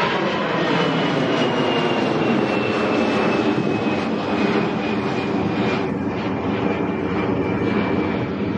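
Airbus A321 airliner's jet engines at takeoff thrust as it climbs out, a loud steady rush with a thin high whine that slowly falls in pitch as the plane draws away.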